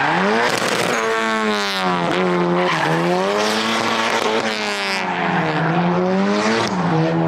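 Mazda Miata drift car's engine revving up and down in several swings as it slides, with tyre squeal over it.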